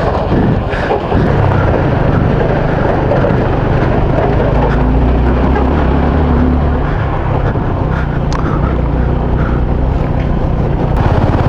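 Motorcycle engine running steadily while riding a rough dirt road, a low steady hum under a dense rush of noise.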